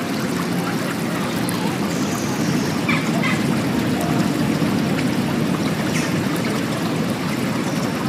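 Steady rushing of flowing water, even in level throughout, with a couple of faint short calls about three seconds in.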